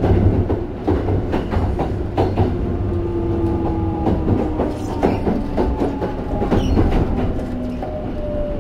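Sanyo 5030 series electric train's Fuji Electric IGBT VVVF inverter whining in tones that slowly fall in pitch as the train slows, over a steady running rumble with wheels clacking on rail joints.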